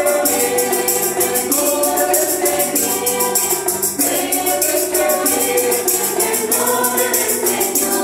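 Mixed church choir singing a Spanish hymn together, accompanied by strummed mandolins and an evenly shaken tambourine jingling on the beat.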